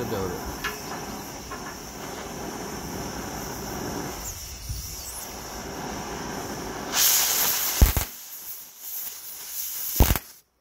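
Oxy-acetylene cutting torch hissing steadily as it cuts steel plate. About seven seconds in the hiss turns louder and sharper, with a sharp pop near eight seconds and another near ten as sparks spray out of the cut, most likely from buried slag.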